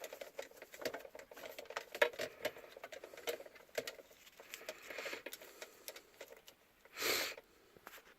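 Car-stereo wiring harness and plastic plug connectors being handled behind the dash: irregular small clicks and scratchy rustling, with one brief louder rustle about seven seconds in.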